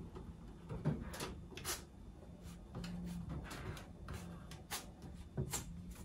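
A Cornish Rex cat pawing at a microwave oven's door, making several sharp clicks and knocks against the door, the loudest about a second in.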